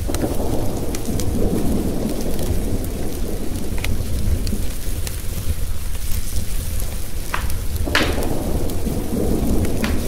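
Steady rain with rolling thunder, swelling at the start and again near the end, mixed with a wood fire crackling, with a few sharp pops about four seconds in and twice more near the end.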